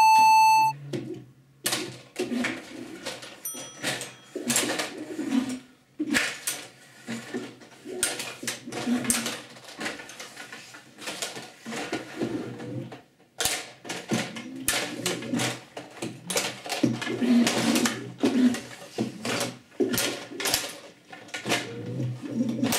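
A short beep, then a STIGA Play Off table hockey game in play: rapid, irregular clacks and knocks of the plastic players, rods and puck, over the varying whir of the robot's electric motors driving the rods.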